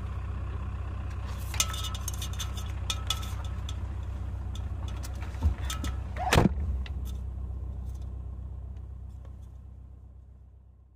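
Vehicle engine idling steadily, with scattered clicks and a jangle like keys, and a short loud sweeping sound about six seconds in; it all fades out near the end.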